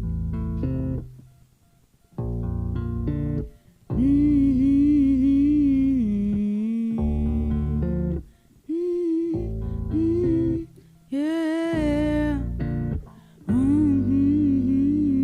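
Intro of a song played live: guitar and bass chords in short phrases with brief stops between them, and a woman's wordless vocal runs with vibrato laid over them from about four seconds in.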